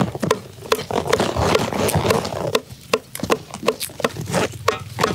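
Sharp, irregular snapping and rustling, two or three snaps a second, as hands pull the stems off fresh red chilies.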